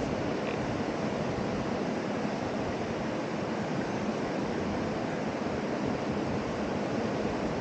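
Steady rush of a fast-flowing mountain river running over rapids.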